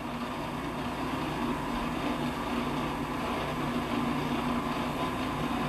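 Food processor motor running steadily, grinding sunflower seeds into sunflower seed butter.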